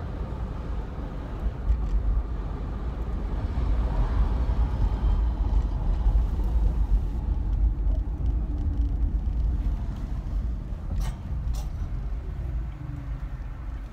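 Road and engine noise inside a moving car's cabin: a steady low rumble with slow rises and falls in pitch. Two short clicks come about eleven seconds in.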